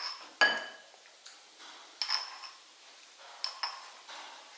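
A small metal spoon clinking against a white ceramic salt jar as salt is scooped out: a sharp clink about half a second in, then fainter clinks around two seconds and three and a half seconds in, each with a short high ring.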